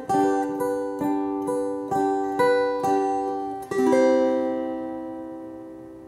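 Handmade canjolele, a ukulele neck on a metal vintage film-canister body, strummed through a Marshall acoustic amplifier. It plays a run of chords about two a second, then a final chord about four seconds in that is left to ring and die away.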